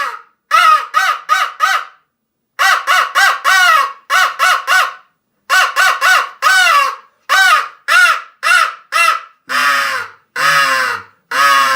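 Hammerin mouth-blown crow call being blown, giving loud caws in quick runs of three to five short calls with short pauses between the runs. Near the end come four longer, drawn-out caws.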